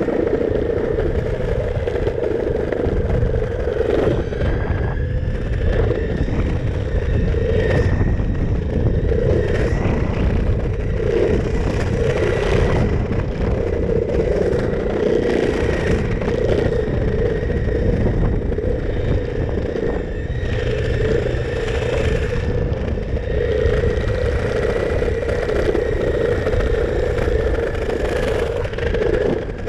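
Electric skateboard rolling fast over paving stones: a steady wheel rumble with scattered clatters over the joints, and a faint steady high whine from the drive running through it.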